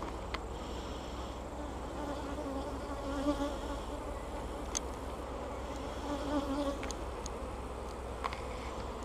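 Honeybees buzzing around an opened hive during an inspection, many wingbeat hums wavering over one another, with a few light clicks. The colony is stirred up and testy at being opened late in the day.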